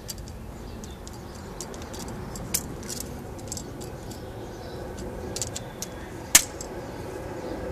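Small metallic clicks and clinks of pliers and hand tools against valve-train parts of an engine cylinder head, with two sharper clicks, one about two and a half seconds in and one near the end.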